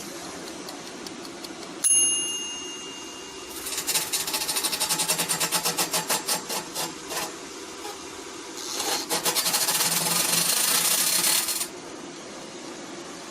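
Electrolux EAF30 air fryer's fan running with a steady hum. About two seconds in there is a sharp metallic ring, then two spells of rapid rattling and clicking, a few seconds each, the second stopping abruptly near the end. This is the noise that owners of this model report from a loose fan.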